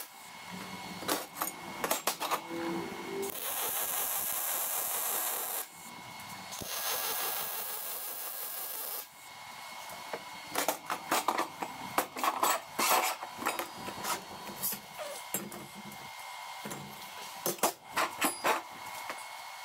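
Two stretches of MIG-welding arc hiss on 3/16-inch mild steel, each about two seconds long, in the first half. In the second half come repeated sharp clanks and scrapes of flat steel bars and parts being handled and set down on a steel welding table.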